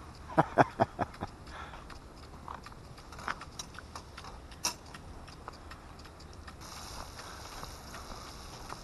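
Footsteps on a wet paved path, with a few short sharp sounds in the first second. A steady hiss comes in about two-thirds of the way through.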